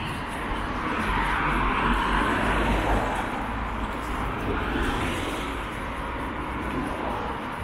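Road traffic: cars going by with a low rumble and tyre noise, one swelling and fading about one to three seconds in and another, smaller one near five seconds.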